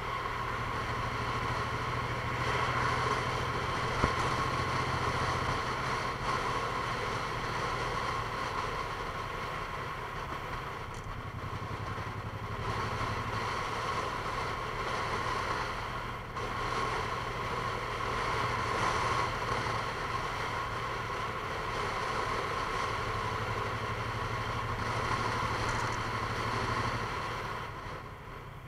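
A vehicle's engine running steadily, its low hum shifting slightly in pitch now and then, with a single sharp click about four seconds in.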